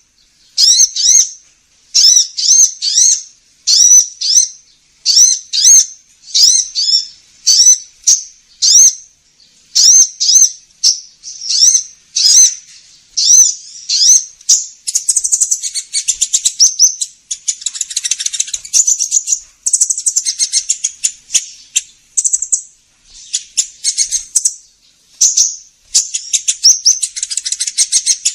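Recorded lure call of a kolibri ninja sunbird: high-pitched chirping phrases repeated in quick succession, giving way about halfway to a fast, dense twittering trill.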